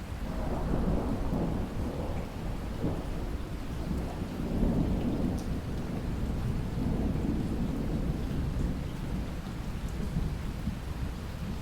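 Rolling thunder over steady heavy rain: a low rumble sets in right at the start and swells several times over about ten seconds, then eases near the end while the rain hiss goes on.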